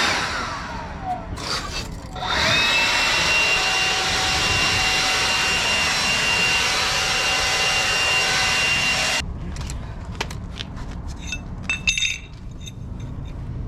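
A handheld power tool whining down in pitch, then spinning back up and running at a steady high whine for about seven seconds before it stops abruptly. It is followed by scattered knocks and metallic rattles.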